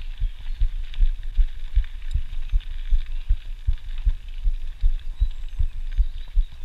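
Mountain bike riding fast on a dirt forest path, heard through a camera mounted on the rider or bike: a steady run of low thumps, about two to three a second, over a continuous hiss of tyre and rolling noise.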